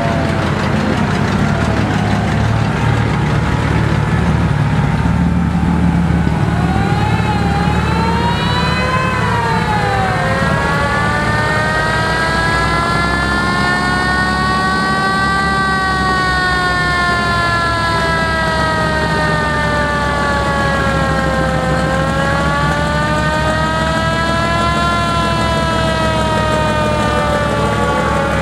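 Fire truck sirens wailing, several at once, their pitch slowly rising and falling and crossing one another, over the steady low running of truck engines.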